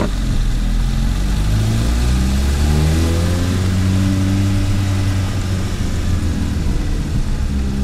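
Turbocharged 1.5-litre single-cam four-cylinder engine of a Mitsubishi Mirage, fitted with a T25 turbo and a custom exhaust, pulling away under acceleration. The engine note climbs and drops a few times as the revs change.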